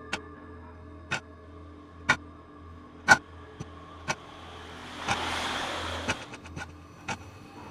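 Experimental ambient music: a sharp clock-like tick about once a second, with fainter ticks between, over a low drone and held tones. A hiss swells up about five seconds in and fades a second later.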